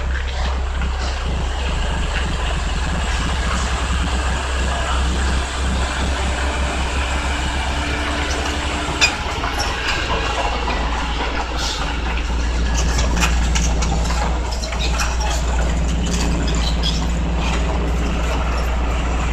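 Heavy diesel engines of a Caterpillar excavator and a Hino dump truck running as a steady low rumble, with one sharp knock about nine seconds in.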